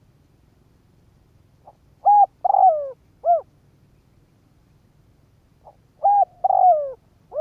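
Spotted dove calling, a decoy bird's call meant to draw in wild doves. It gives two phrases about four seconds apart, each a soft short note followed by three coos, the middle coo longer and sliding down in pitch.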